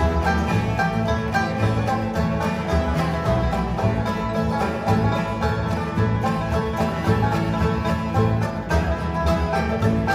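Acoustic bluegrass band playing an instrumental passage with no singing: banjo, mandolin, dobro, two acoustic guitars and upright bass keeping a steady beat.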